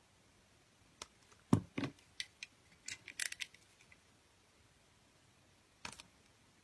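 Scattered small clicks and knocks of objects being handled: a single click, then a duller knock about a second and a half in, followed by a quick run of light, high clicks, and one more click near the end.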